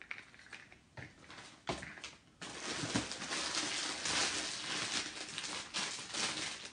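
Packaging rustling and crinkling as hands rummage through a gift hamper, beginning about two and a half seconds in after a few light knocks.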